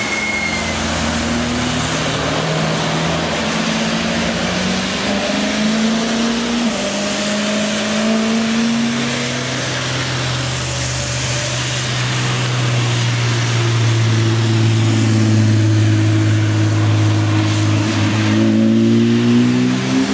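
Cars accelerating past on a wet track, their engines rising in pitch through the gears, one after another, over a steady hiss of tyre spray on the wet tarmac. A louder, deeper engine note builds from about halfway through.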